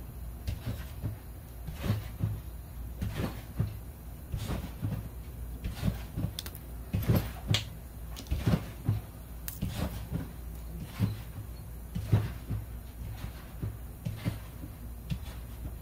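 Small metal air fittings and tools being handled, threaded together and set down on a steel workbench: irregular light clicks and knocks, about one or two a second, over a steady low hum.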